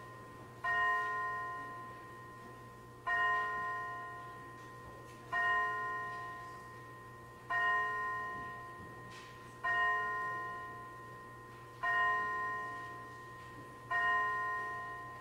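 A church bell tolling one note over and over, seven strikes about two seconds apart, each ringing on and fading before the next.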